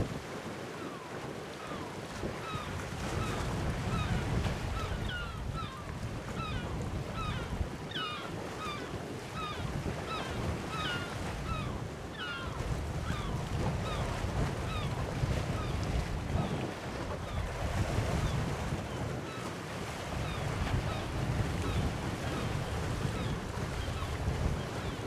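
Sea waves and wind gusting on the microphone, with small birds chirping in short quick calls, about two a second, until about halfway through.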